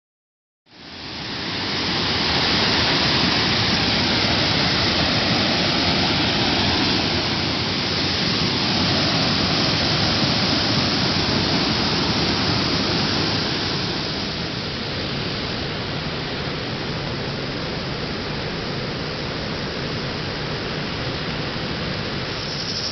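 Loud, steady rushing noise with no distinct tones, cutting in abruptly under a second in and easing slightly about two-thirds of the way through.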